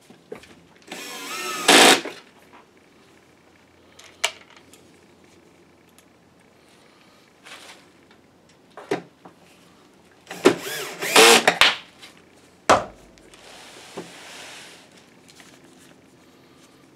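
Electric screwdriver driving screws, in two short runs of motor whirring, one about a second in and one about ten seconds in, with a few light clicks between as screws and parts are handled.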